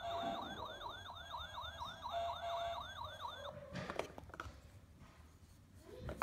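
Recorded fire-engine siren from the small speaker in a Melissa & Doug wooden Vehicles Sound Blocks tray, set off by matching the two fire-engine cube halves: a fast, repeating rise-and-fall yelp that stops about three and a half seconds in. Then a few clacks of the wooden cubes as they are lifted out of the tray.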